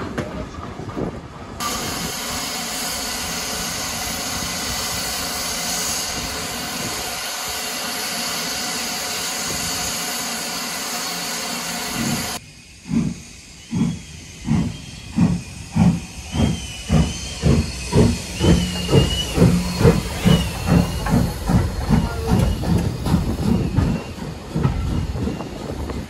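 Steam locomotive blowing off steam, a loud steady hiss that starts about a second and a half in and cuts off abruptly about halfway through. Then a steam locomotive pulling away with its exhaust beats quickening from about one a second to two or three a second, followed by coaches rolling past on the rails.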